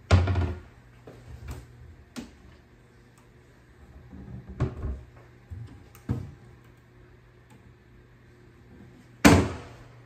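Wooden kitchen cabinet doors being opened and shut by hand, a string of about six sharp knocks as the doors meet the cabinet frames. The loudest knocks come right at the start and about nine seconds in.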